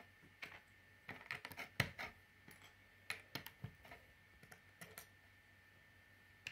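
Plastic Lego bricks clicking and tapping as they are handled and pressed onto a build: a run of faint, irregular clicks, some coming in quick clusters.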